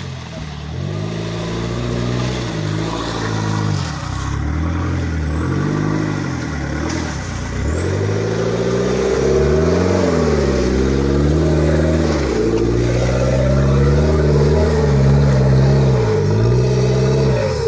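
Land Rover Freelander's engine revving up and down over and over as the SUV pulls through deep mud on a steep rutted track, getting louder from about eight seconds in.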